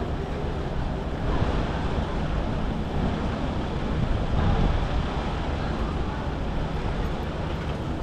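Steady city traffic noise: a low rumble under an even rushing hiss, a little louder between about one and five seconds in.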